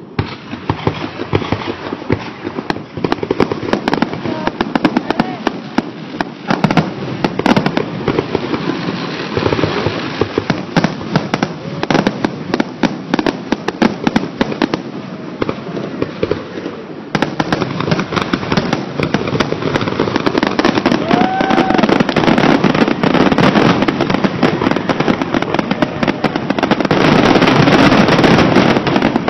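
Fireworks grand finale: a dense, nearly continuous barrage of shell bursts and crackling, loudest near the end.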